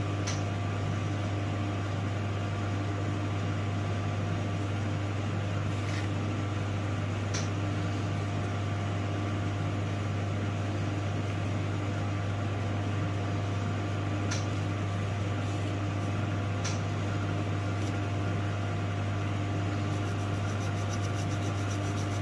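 Steady low mechanical hum, like a running fan or ventilation unit, with a handful of faint ticks scattered through it.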